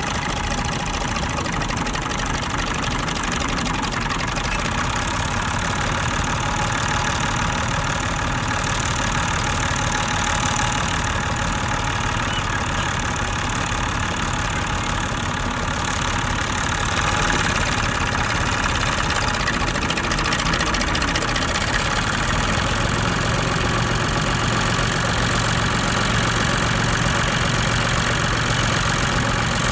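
Massey Ferguson 135 tractor's engine running steadily under load while pulling a three-furrow plough through stubble, growing a little louder in the second half.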